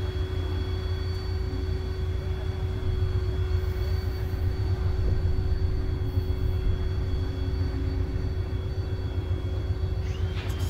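VIA Rail F40PH diesel locomotive approaching slowly, its engine giving a steady low rumble with a faint steady whine above it.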